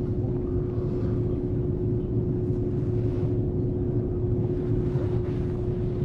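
Steady low rumble with a constant mid-pitched hum: unchanging room background noise from a machine or sound system, with no speech.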